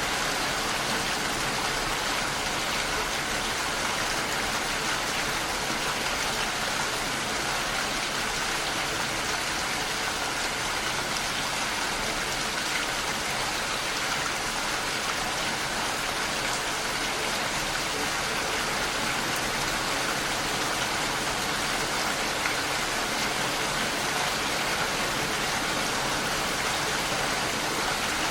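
Steady rain falling, a continuous even hiss of rain on surfaces.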